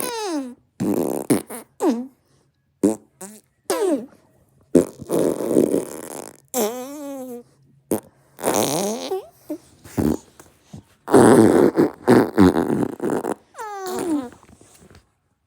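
A string of about a dozen fart sound effects, one after another with short gaps. Some are brief and some run for a second or more. Several slide down in pitch, and one wobbles up and down.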